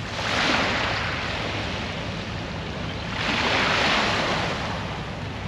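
Small waves washing up onto a shell-strewn shore, surging twice about three seconds apart.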